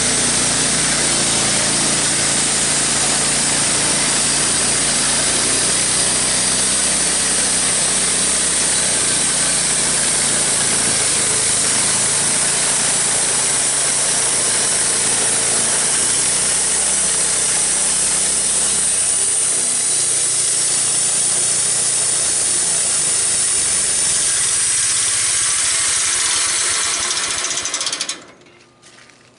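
Homemade bandsaw mill running steadily as its blade saws through a log. The low hum thins out about two-thirds of the way in, and the machine cuts off abruptly near the end.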